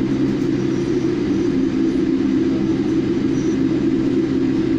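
Steady cabin noise inside a taxiing Boeing 787 Dreamliner: a low hum of the jet engines at low thrust, made of several held low tones over an even rush of air.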